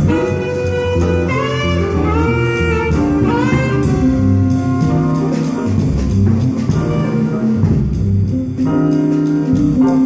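Small jazz band playing: a horn melody with rising runs over bass notes and a drum kit keeping time with regular cymbal strokes.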